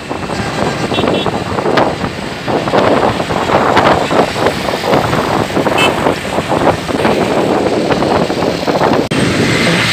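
Road traffic noise heard while moving along a busy road: small motorcycle engines running close by, with rushing air on the microphone.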